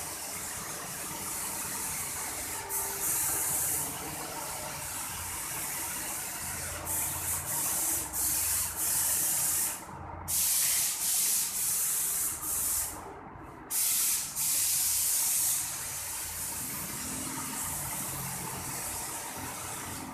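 Paint spray machine spraying wall paint: a loud hiss that starts and stops in repeated bursts of about a second, over a steady machine hum.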